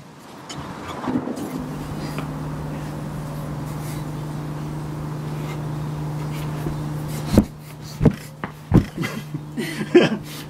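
A steady low mechanical hum holds for several seconds. Then comes a sharp thump as a person drops heavily onto a carpeted floor, landing on his backside, followed by a few softer knocks and breathy laughter.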